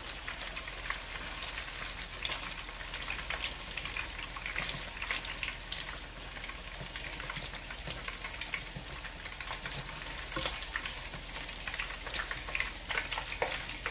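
Bacon-wrapped biscuits deep-frying in hot oil on medium-low heat: a steady sizzle full of small crackling pops, with a few sharper clicks about ten seconds in and near the end.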